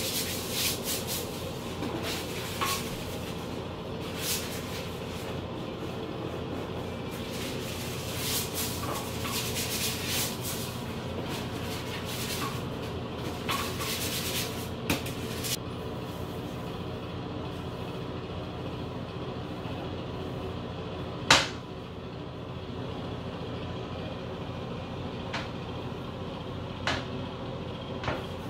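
Toilet brush scrubbing the inside of a toilet bowl in scratchy bursts through the first half, over a steady low hum. A single sharp knock comes about two-thirds of the way through, with a few faint ticks near the end.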